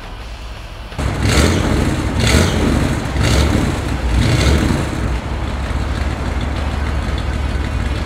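1964 Ford Thunderbird's original 390 four-barrel V8 running through its dual exhaust. It comes in loud about a second in and is revved in four quick blips about a second apart, then runs steadily.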